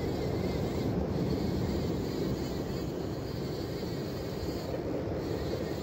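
Steady rumbling wash of wind and sea surf at a rocky shore, with no distinct events.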